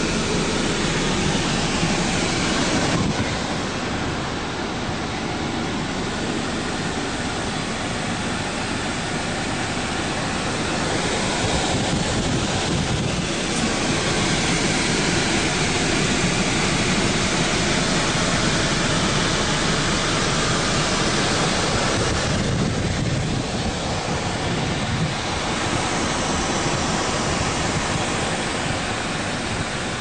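Wind rushing over the microphone: a steady noise that eases briefly twice.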